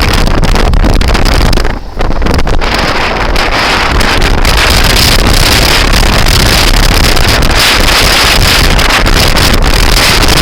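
Loud wind buffeting the microphone of a moving scooter, a dense rumbling roar with a brief lull about two seconds in.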